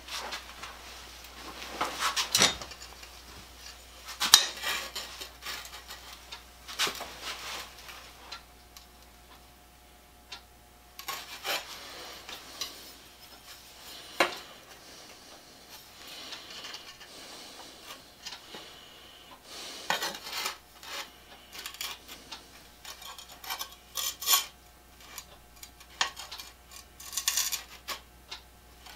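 Irregular metal clinks and short scrapes as a steel plane blade and small hand tools are handled and set on a grinder's tool rest.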